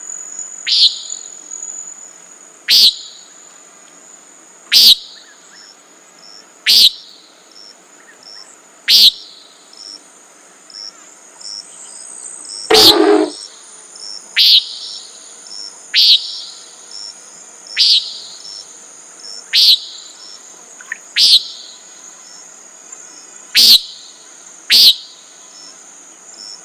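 Common nighthawk giving its short peent call over and over, about every two seconds, with one louder, longer and lower sound about halfway through. Crickets trill steadily behind it.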